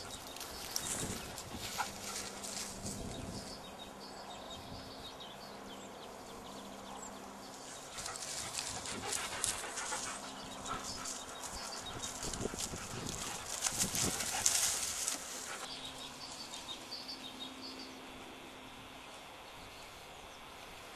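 Belgian Shepherd Groenendael dogs moving about, with scattered short crackles and scuffs that are busiest in the middle stretch.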